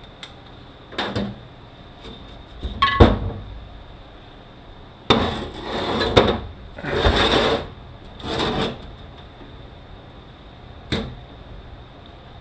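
Hand tools and steel gearbox parts clanking and scraping while a manual transmission is being taken apart. There is a sharp metal knock about three seconds in, then several scraping, rattling bursts, and a single click near the end.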